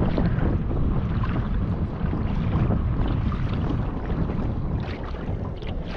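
Wind buffeting the microphone, with water noise from a small boat moving on the river.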